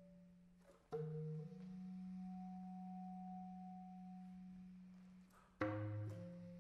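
Bass clarinet holding long, low, steady notes. A new note starts with a sharp attack about a second in, and another sharp attack near the end brings in a lower tone that sounds under the main note for a moment.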